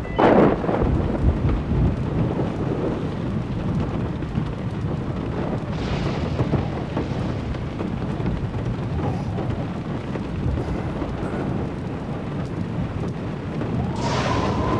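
Storm ambience: a steady low rumble of wind and rain, with a loud whoosh right at the start and another near the end.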